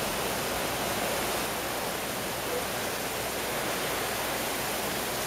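Strong wind and heavy, wind-driven rain of a hurricane rain band, a steady, even rush of noise.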